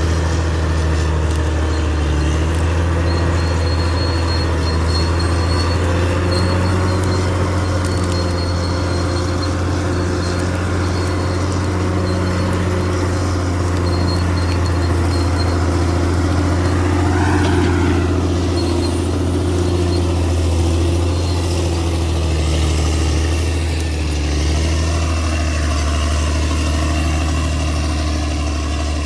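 Caterpillar D6R XL bulldozer's diesel engine running with a steady, deep drone.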